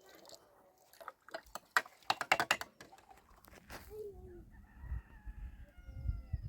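A quick run of sharp clicks or clatter about two seconds in, then a rooster crowing in a held, pitched call near the end.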